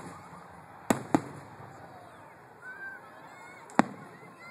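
Aerial firework shells bursting: three sharp bangs, two close together about a second in and one near the end.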